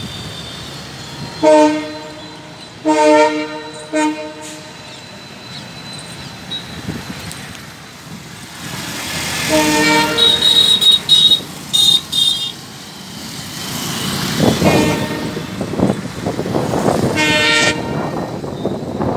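A locomotive horn sounding five short blasts: three in quick succession in the first four seconds, one about ten seconds in and one near the end.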